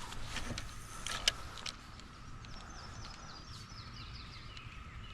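A few sharp clicks and knocks in the first second or two, then a bird sings a quick run of short, falling notes. A faint, steady high tone runs underneath.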